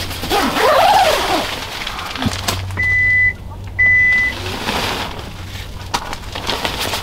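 Two short, high electronic beeps, each about half a second long and half a second apart, over light rustling of tent fabric.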